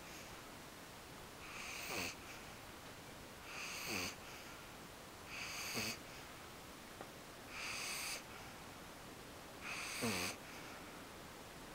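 Pug puppy snoring in deep sleep: five wheezy, whistling snores, about one every two seconds, each ending with a quick drop in pitch.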